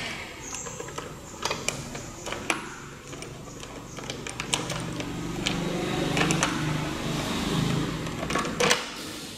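Hand tools at work removing an engine's intake manifold: a socket wrench on an extension and speed handle unscrewing the manifold bolts, with sharp metallic clicks and knocks and a denser rattling run from about four and a half to eight and a half seconds in.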